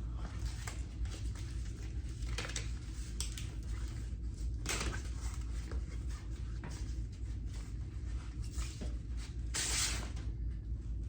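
Hand sanding the primed fender of a '65 Corvair with 220-grit sandpaper: irregular scratchy strokes, with the loudest, longest stroke near the end. A steady low hum runs underneath.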